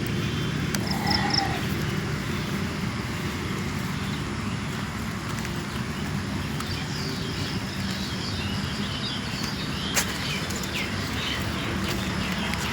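Outdoor ambience of birds chirping over a steady low hum. A few chirps come near the start and a busier run of them comes in the second half, with one sharp click about ten seconds in.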